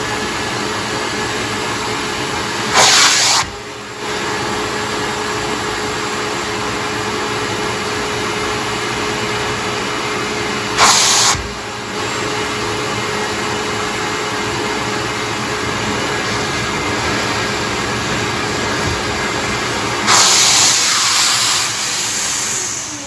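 Small shop vac running steadily with a steady whine, sucking through a clear hand-extractor tool pressed on wet carpet to draw spilled milk out of the carpet and pad. Three times the rush of air turns louder and hissier for a moment, the last and longest near the end.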